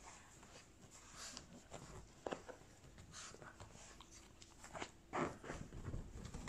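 Faint rustling and scuffling of two Boston terriers in fabric sweaters jostling on a cloth couch, with scattered light knocks and a louder scuff about five seconds in.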